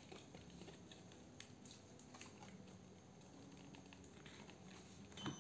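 Near silence, with a few faint clicks of hands handling a cordless screwdriver whose motor is not running.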